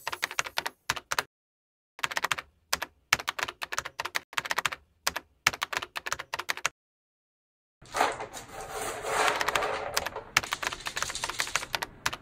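Typing sound effect: rapid keyboard clicks in quick bursts, cut by two short stretches of dead silence. From about eight seconds in, the clicks go on over a fuller, denser background sound.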